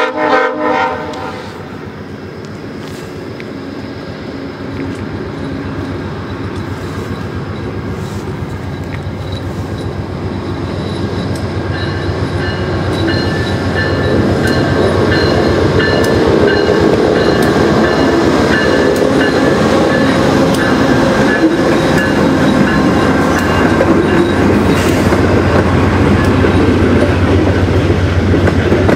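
VIA Rail GE P42DC diesel locomotive hauling a passenger train, growing steadily louder as it approaches and passes. Then the coaches roll by with wheels clicking over the rail joints. A brief loud sound comes at the very start.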